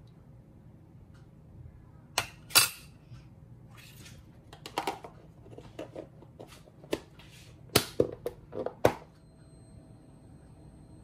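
Metal spoon clinking and tapping against a ceramic coffee mug: an uneven run of sharp clinks, a few of them loud, from about two to nine seconds in.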